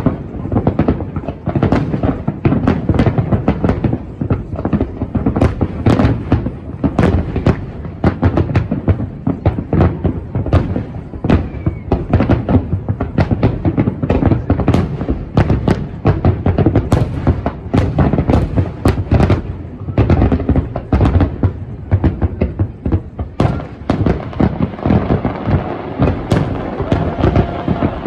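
Aerial fireworks display: a loud, dense barrage of overlapping bangs and crackles, many shells bursting every second, with heavy low booms underneath.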